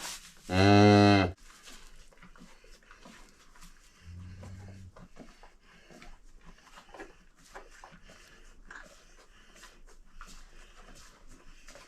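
A cow moos once, short and loud, about half a second in. Around four seconds in comes a quieter, low moo, with faint rustling and clicks in between.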